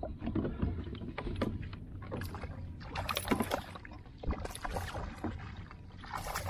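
Fishing gear knocking and clicking on a plastic kayak as a long-handled landing net is swung out, with a few short rushes of water splashing near the middle as the net and a small hooked Chinook salmon meet the water.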